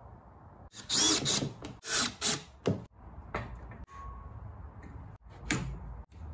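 Workshop handling noises in short separate bursts: spirit levels, wooden blocks and clamps being set in place, scraping and knocking against one another, as a clamp screw is turned tight.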